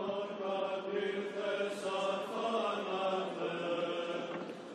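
Choral chanting: a slow, sustained vocal melody sung over a steady held low drone note.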